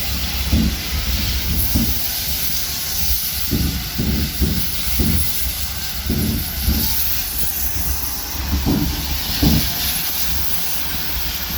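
LPG gas escaping under pressure with a steady hiss, and irregular short low thumps underneath.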